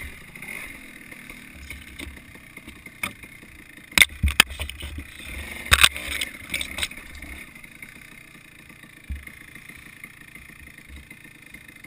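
Dirt bike engine running on a wooded trail, with a burst of loud, sharp knocks and clatter about four to seven seconds in. After that the engine sound drops away and goes quieter.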